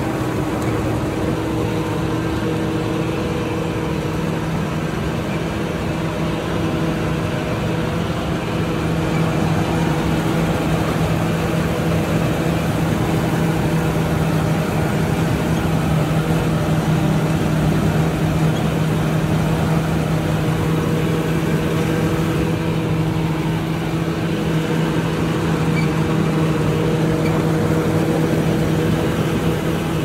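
Engine of a Somkid Kan Chang-built rice combine harvester running steadily with a constant hum, a little louder from about ten seconds in.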